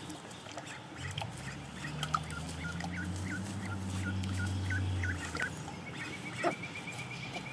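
Young domestic ducks making soft, short quacking calls over and over. A low steady hum sits underneath for a few seconds in the middle.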